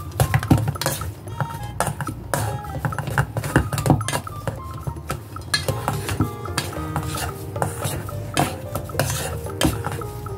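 Metal potato masher knocking and scraping against a stainless steel bowl, with irregular clanks throughout as sweet potato is mashed. Background music plays underneath.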